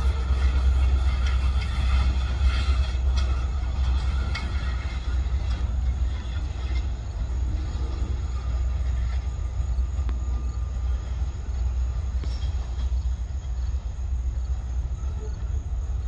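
Freight train cars rolling away on the track: a steady low rumble with a few sharp clicks in the first few seconds, easing slightly as the train recedes.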